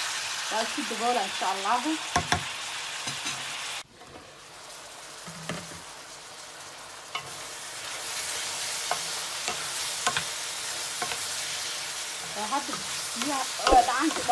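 Beef strips and onions sizzling in a glass dish, with a spoon stirring and clicking against the dish in the first seconds. After a sudden cut, the meat sizzles on in its juices as a steady hiss with light crackles, growing louder from about eight seconds in.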